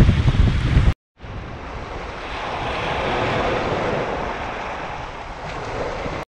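Wind buffeting the microphone for about a second, then, after a cut, small waves washing up a sandy shore in a steady surf that swells a few seconds in and eases again.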